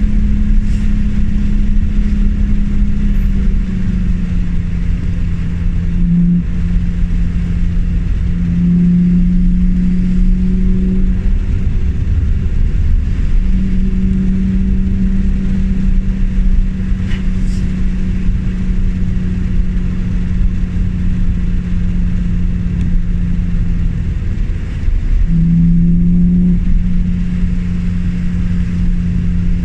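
BMW E36 M3's straight-six engine running at steady, moderate revs. Its note eases down about four seconds in and rises briefly a few times, around 9–11 seconds and again near 25 seconds, over a low rumble.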